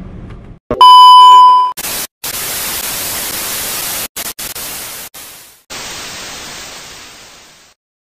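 Television test-pattern sound effect. After a click comes a loud, steady, high beep for about a second, then TV static hiss that cuts out a few times and fades away near the end.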